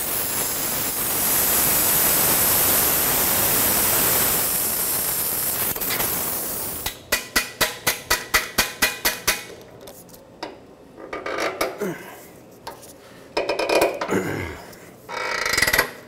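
Acetylene torch flame hissing steadily as it heats a rusted exhaust manifold nut, cutting off sharply about seven seconds in. After it stops, a quick even run of about a dozen metal clicks comes at roughly five or six a second, then scattered lighter clinks of tools on the nut.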